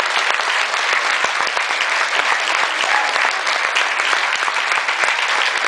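Theatre audience applauding a curtain call: steady, dense clapping from many hands.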